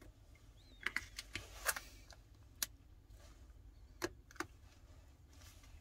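Faint, scattered small clicks and taps as a Samsung S10 Plus motherboard is pressed and seated into the phone's frame by hand.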